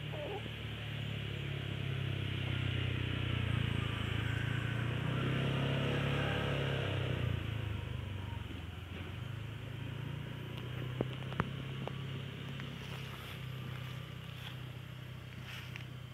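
A motor engine hums steadily. It grows louder for a few seconds in the middle and then eases back. Two short clicks come about two-thirds of the way through.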